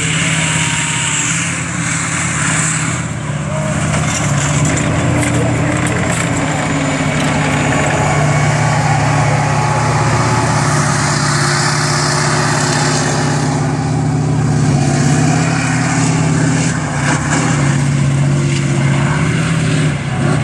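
T-72 tank's V12 diesel engine running loud and steady under load as the tank drives over soft ground, with clanking and crunching as it runs over and pushes a wrecked car body.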